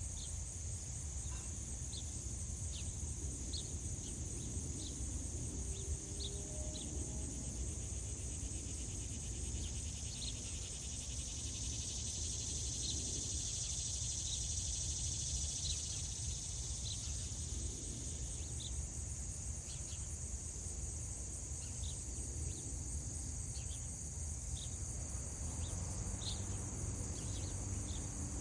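Insects calling: a steady high shrill chorus, with short chirps repeating about once a second over a low rumble.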